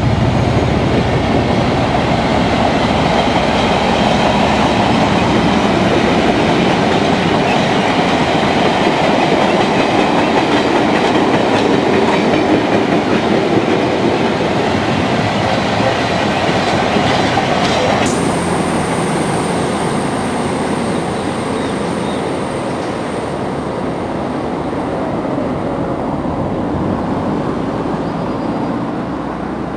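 Train of open box freight wagons rolling past at speed: a steady, loud clatter and rumble of wheels over the track. About two-thirds of the way through it cuts to a quieter, steadier train sound with a thin high whine as a Voyager diesel unit approaches.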